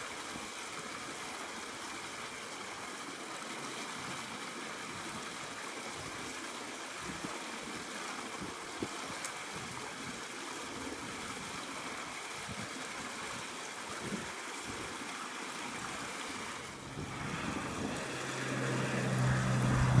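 Steady rush of a shallow river running over rocks. In the last few seconds a low steady hum comes in and grows louder.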